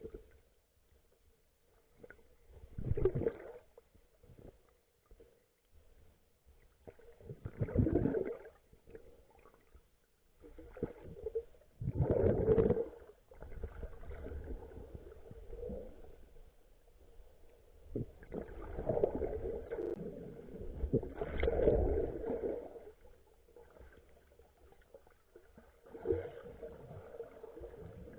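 Muffled water sloshing and gurgling around a submerged camera, swelling in surges every few seconds, with a faint steady tone underneath.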